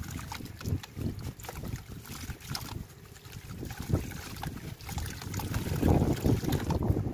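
Hands crushing crunchy lumps of dry, stony sand, crackling as they crumble, with the grit pattering and sprinkling into a bucket of water. It gets louder near the end as both hands crumble at once.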